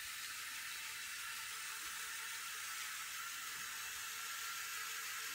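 Faint, steady whir of a LEGO Technic model car's electric drive motor and gearbox as the car drives along, over a hiss.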